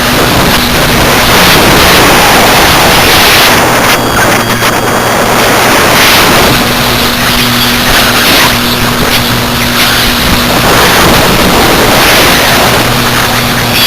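Airflow rushing over the wing-mounted camera's microphone on a Parkzone T-28 Trojan RC plane in flight, loud and surging every couple of seconds as the plane manoeuvres. The electric motor and propeller hum steadily underneath.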